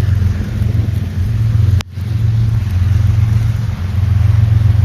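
A steady low engine drone under an even hiss of heavy rain, cutting out for an instant just under two seconds in.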